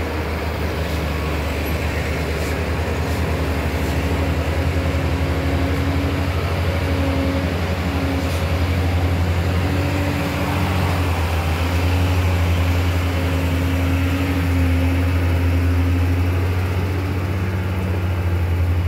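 Diesel engine of a loaded Hino 500 truck labouring as it climbs a steep hairpin bend: a steady low drone with a fainter tone above it, growing slightly louder in the second half.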